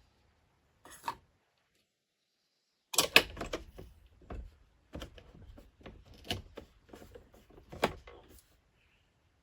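A single click about a second in, then a run of clicks, knocks and rattles from about three seconds in until near the end, like objects being handled; the loudest knock comes at the start of the run.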